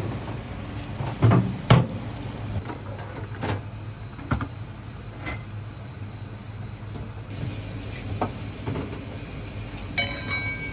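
Wooden spatula knocking and scraping against a metal bowl as crab meat is mixed into sushi rice. A few sharp knocks sound over a steady low hum, and a short ringing clink comes near the end.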